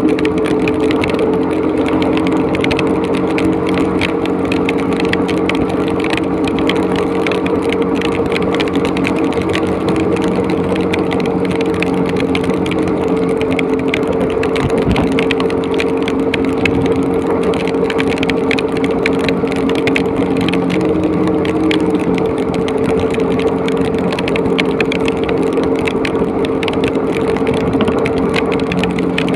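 Motorcycle engine running steadily at cruising speed, its drone holding an even pitch, mixed with heavy rain and wind noise rushing and crackling on the microphone.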